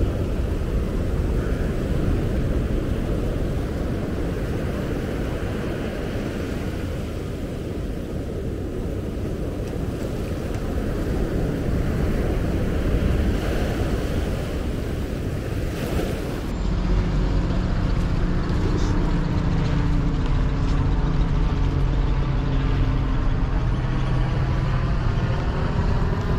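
Surf breaking and washing up the shallow channel, with wind rumbling on the microphone. About two-thirds of the way in this gives way to the steady running of a tracked hydraulic excavator's diesel engine.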